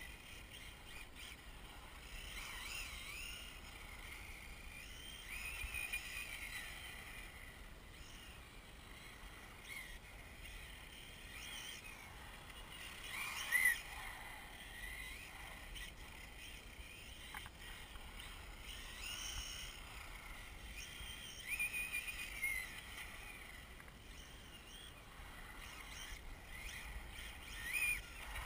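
Brushless electric motor of a 1/8-scale RC drift car whining, rising and falling in pitch again and again as it speeds up and slows, over a faint steady hiss.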